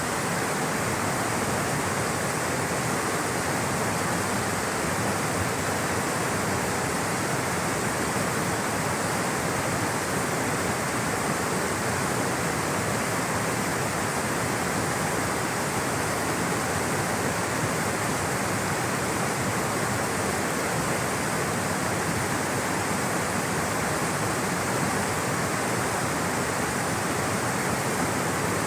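Rushing water flowing steadily, a constant even rush with no breaks.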